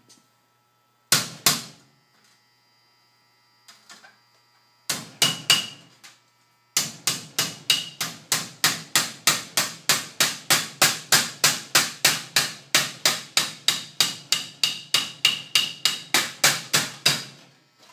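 A hammer striking copper sheet metal to close a flat lock seam: a few separate blows, then steady hammering at about four blows a second, each strike with a short metallic ring.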